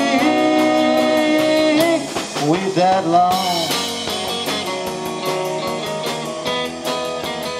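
Live rock band with drums, electric guitars, bass and keyboards playing an instrumental passage over a steady drum beat. A chord is held for about two seconds, then a lead line with bending notes comes in.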